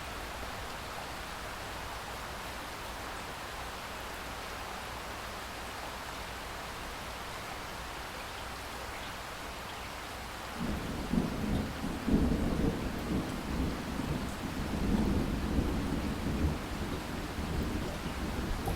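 Steady rain falling. About ten seconds in, a low rumble of thunder begins and rolls on, swelling and fading.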